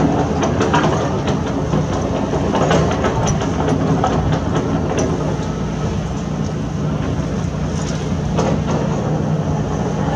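Heavy construction machinery at work: a diesel engine running steadily under load, with scattered sharp metallic knocks and clanks.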